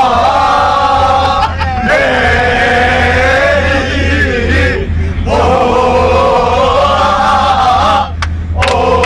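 Football supporters chanting a Turkish terrace song together, loud male voices in long sung phrases with brief breaks between them, in the close space of a bus.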